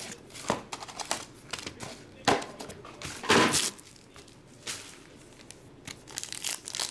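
Foil trading-card pack and plastic wrapping crinkling as they are handled, in several separate rustles, with a crackly run near the end as the pack is torn open.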